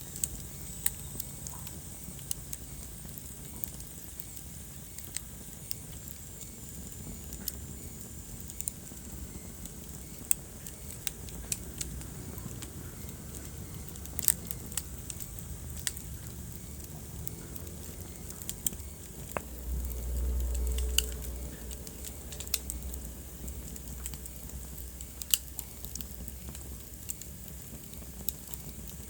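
Wood fire crackling in a fireplace: sharp, irregular pops over a low, steady rumble that swells briefly about twenty seconds in.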